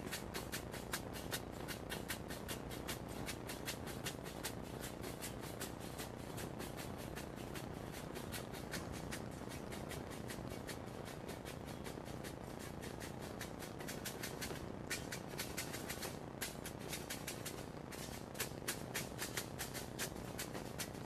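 Rapid, even rhythmic percussion, sharp clicking beats about five or six a second, accompanying a kavadi dance over the steady hubbub of a crowd. The beating pauses briefly about fourteen seconds in, then resumes.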